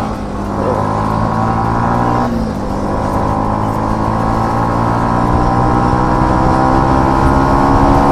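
Single-cylinder motorcycle engine running under load, dropping in pitch briefly about two seconds in at a gear change, then rising steadily as the bike accelerates.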